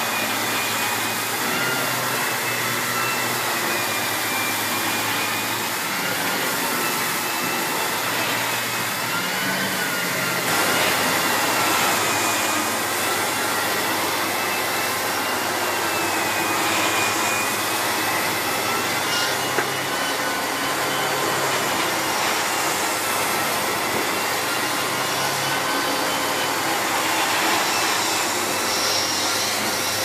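Miele S8330 cylinder vacuum cleaner with a 2200 W motor running steadily while vacuuming carpet. Its high motor whine rises and falls slightly in pitch as the floor head is pushed back and forth, with one small tick about two-thirds of the way through.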